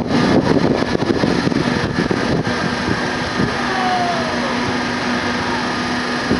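A fairground airplane carousel running at speed, heard from a rider's seat: a steady mechanical hum with a rush of noise, uneven and gusty for the first couple of seconds and then smooth.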